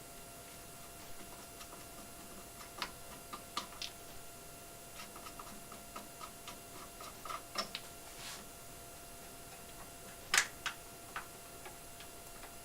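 Scattered light clicks and knocks of the freezer-door parts of an Electro Freeze soft-serve machine being loosened and handled, with one louder knock about ten seconds in, over a faint steady hum.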